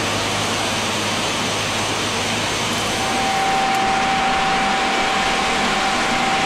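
RU 800 S railway track renewal machine running: a loud, steady noisy roar with a low hum underneath, joined about three seconds in by a steady whine.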